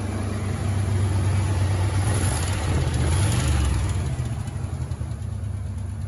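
A 1972 Buick GS 455's V8 engine running, building in revs from about a second in and easing back after about four seconds.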